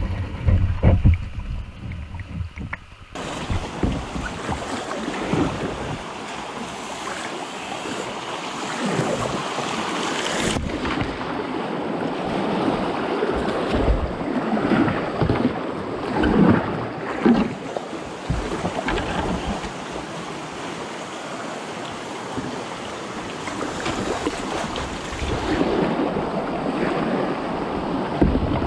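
River water rushing and rippling past a kayak as it is paddled down a shallow rocky river, with the splash of paddle strokes now and then. Low buffeting on the microphone for the first three seconds, then a steady rush of water.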